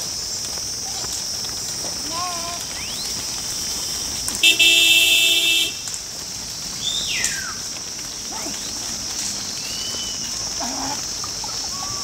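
A vehicle horn honks once, a steady note lasting just over a second, about four and a half seconds in, over a steady high hiss. A few short gliding calls come before and after it.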